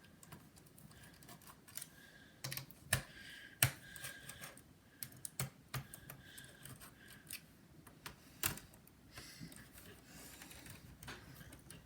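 Scattered light clicks and taps of a precision screwdriver and small parts against a laptop's plastic case, with a few sharper knocks along the way.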